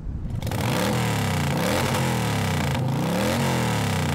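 An engine revving up and down repeatedly, its pitch rising and falling several times in a row.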